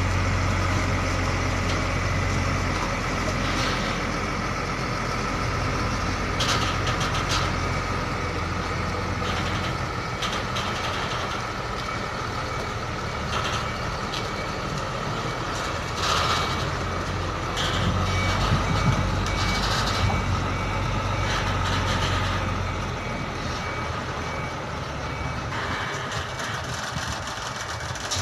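Diesel container truck manoeuvring slowly with its engine running low and steady, a reversing alarm beeping repeatedly, and a few short hisses.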